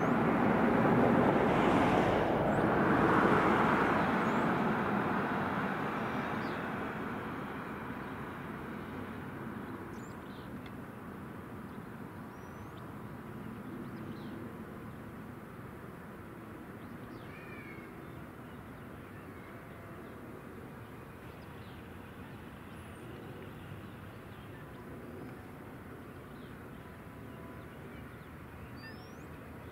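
A vehicle's noise swells and then fades over the first several seconds, leaving a faint steady drone. Small birds chirp briefly now and then.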